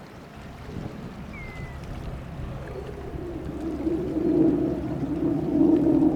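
Fishing boat engines approaching on the river: a low rumble with a droning tone that builds from about halfway in and grows steadily louder.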